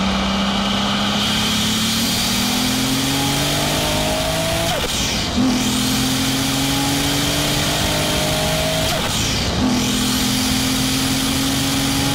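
Toyota Aristo 3.0V's twin-turbo 2JZ-GTE straight-six pulling under hard acceleration, its note climbing slowly in each gear. The pitch drops sharply at two upshifts, about five and nine and a half seconds in, over a steady rush of wind and road noise.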